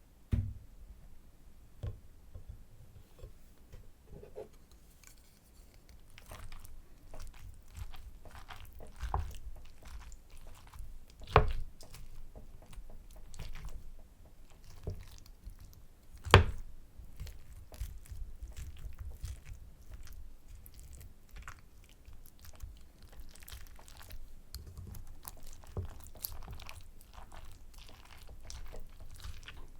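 Close-miked chewing of soy sauce butter egg rice: wet, smacking mouth sounds with small crunches, steady from about six seconds in. A few sharp knocks stand out, the loudest about eleven and sixteen seconds in.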